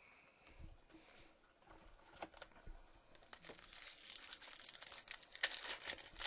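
Foil wrapper of a Topps Chrome football card pack crinkling and tearing as it is ripped open. A few faint clicks come first, then dense crackling from about three seconds in, loudest near the end.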